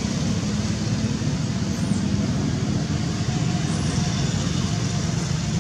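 Steady low rumble with an even hiss.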